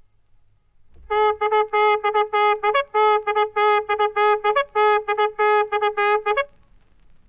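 Military bugle call on a brass horn: three phrases of rapid repeated notes on one pitch, each ending on a short higher note. It starts about a second in and stops about a second before the end.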